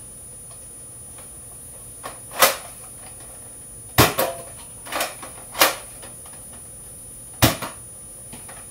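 A toy gun firing: about seven sharp snaps and knocks, some in quick pairs, loudest about four seconds in and again near the end.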